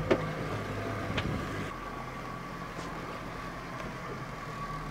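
Fishing boat's engine running steadily at low speed, heard from inside the wheelhouse, with a sharp knock just as it begins and a lighter one about a second in.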